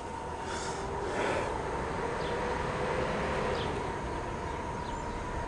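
Steady outdoor background rumble with a constant high hum, and a few short, high chirps from small birds.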